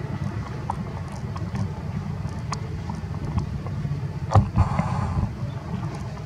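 Wind buffeting the microphone: a steady low rumble with scattered small clicks and a sharp thump about four seconds in.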